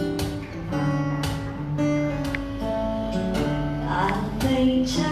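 Acoustic guitar strumming chords, a stroke about every half second over ringing notes, in the instrumental intro before the vocals come in.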